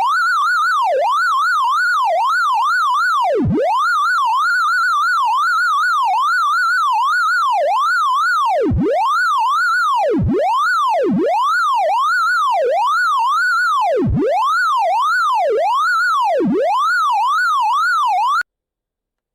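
Synthesized sorting-visualisation tone from a gnome sort, its pitch following the values of the array elements being compared. It sweeps continuously up and down in quick swoops, sometimes diving deep and climbing back, and cuts off suddenly near the end.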